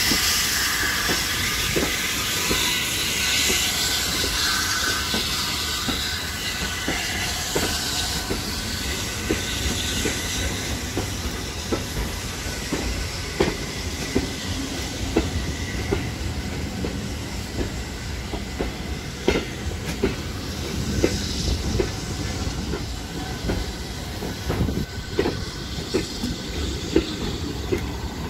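Steam-hauled train passing close by: a hiss of steam at first, then the carriage wheels clicking over the rail joints in an uneven run of clacks.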